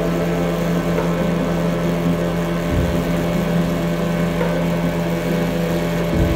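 Yamaha Enduro 15 two-stroke outboard motor running steadily at speed, with the rush of water from the wake.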